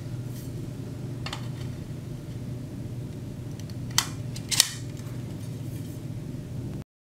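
Metal pole caddy tubes being handled and fitted together: a few light clicks, then two sharp metallic clicks about four seconds in, over a faint steady hum. The sound cuts off abruptly near the end.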